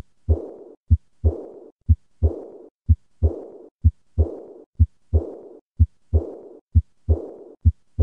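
Heart sounds of aortic regurgitation, about one beat a second. Each beat is a first and second heart sound, and right after the second sound comes a high-pitched blowing diastolic murmur that fades away before the next beat.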